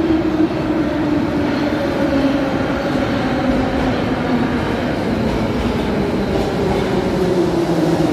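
Ezh-3 (Еж3) metro train rolling into the station along the platform: a steady rumble and rattle of the cars, with a whine that falls in pitch as the train slows.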